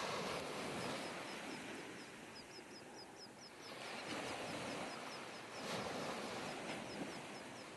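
Small waves washing over a sandy beach, the surf swelling and fading, while a bird gives a rapid, even series of short high chirps, about five a second.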